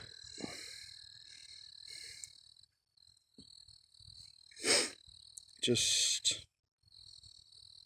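Faint, steady, high-pitched insect-like trill that drops out for a few seconds midway and returns near the end, with a soft chirp about twice a second under it at first. A single short spoken word comes shortly before the end.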